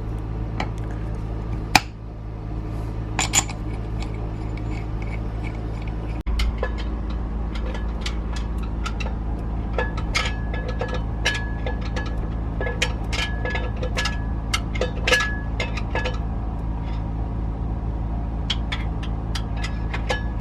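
Scattered light metallic clinks and taps of tools and engine parts being handled during a diesel engine teardown, over a steady low hum.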